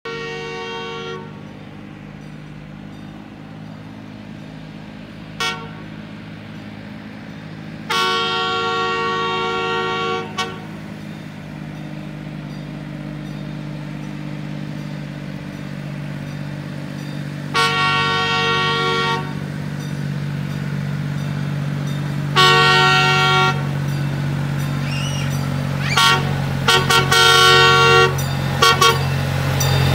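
Small locomotive's horn sounding a series of long and short blasts as the train approaches a crossing, with the engine's low running noise growing louder as it draws near.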